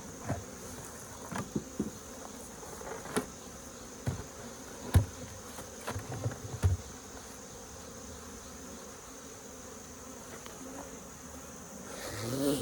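Swarm of agitated honeybees buzzing steadily around an open hive, the bees described as really getting mad. Scattered knocks and clicks of hive frames and boxes being handled sound over the buzzing, the loudest about five seconds in and near seven seconds.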